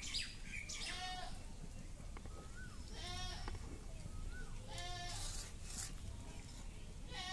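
Livestock bleating: four quavering calls, about two seconds apart.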